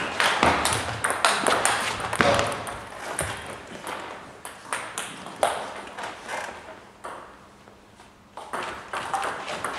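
Table tennis ball clicking off bats and the table in a doubles rally: quick, irregular hits that thin out after about three seconds and stop briefly near the end, before clicking starts again with the next serve.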